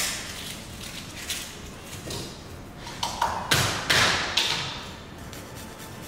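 Chef's knife knocking on a plastic cutting board while chopping a garlic clove: a sharp knock at the start, a few light taps, then a quick run of louder chops a little past halfway.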